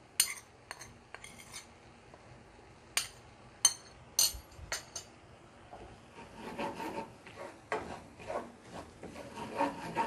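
A few sharp clicks as red chili and nihari masala are tipped from a plate into the pan. Then the onion-and-flour baghar sizzles and crackles in hot oil as the spices hit it.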